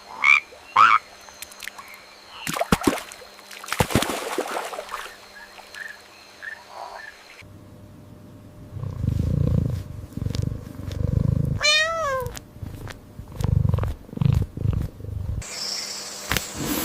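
Animal sounds cut together from several clips. In the middle stretch a cat purrs in repeated low pulses about a second long and gives one short meow that falls in pitch. The first part holds scattered short calls and clicks.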